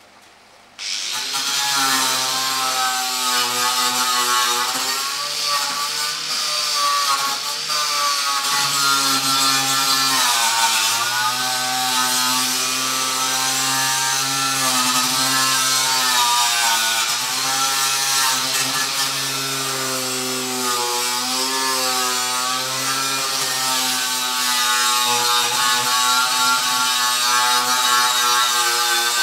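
Corded handheld power tool starting up about a second in and then working against the metal of a steel ammo can, with a high grinding hiss. Its motor pitch keeps sagging and recovering as it is pressed onto the surface and eased off.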